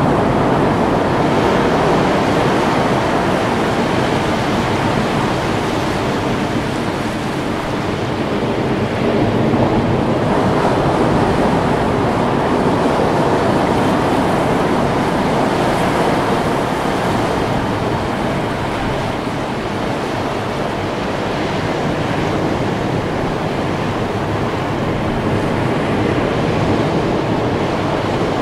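Ocean surf: a steady rushing of breaking waves that swells and eases slowly.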